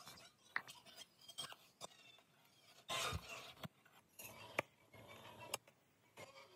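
Metal spoon stirring a butter sauce in a pan, with scattered light clinks and short scrapes against the pan.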